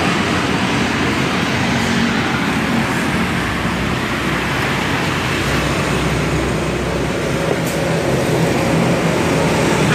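Jiangdong ZH185 10 hp single-cylinder diesel engine running steadily.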